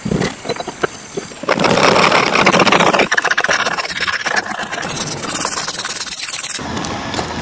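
A tool working a block of wood: light knocks, then from about a second and a half in a loud stretch of cutting noise, followed by a rapid scraping that changes abruptly near the end.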